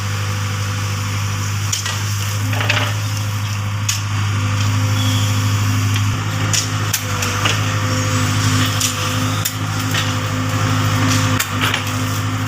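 A steady, low machine hum, with irregular sharp knocks and taps over it, as of construction work.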